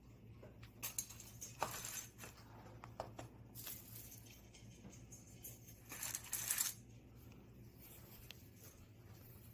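Dry dog kibble clicking and rattling in a plastic slow-feeder bowl as the bowl is handled. There are a few sharp clicks and two short rattling bursts, the louder one about six seconds in.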